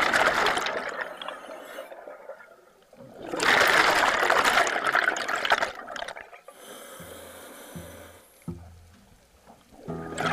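Scuba diver's exhaled air bubbling out of the regulator: two long rushing bursts of bubbles, about three seconds apart, with a quieter hiss between them, and a third burst beginning near the end.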